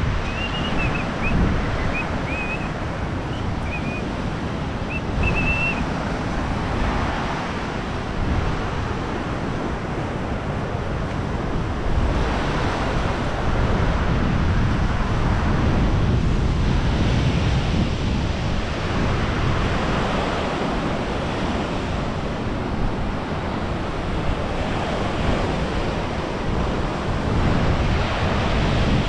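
Wind buffeting the microphone over waves breaking along the shore: a loud, steady rushing noise that swells in gusts and grows a little louder about twelve seconds in.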